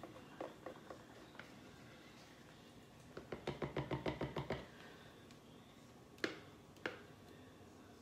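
Silicone spatula stirring thick soap batter in a plastic measuring cup, a fast even tapping against the cup's sides for about a second and a half in the middle. Two sharp knocks follow near the end.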